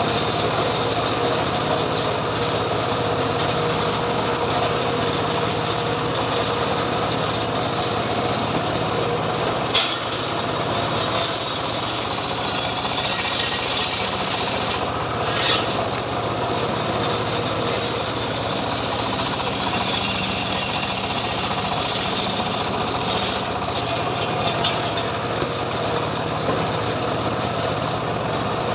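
Homemade engine-driven circular saw running steadily while its blade cuts mahogany wood, the cutting adding a harsher, higher rasp in long stretches. Two short sharp knocks, about ten and fifteen seconds in.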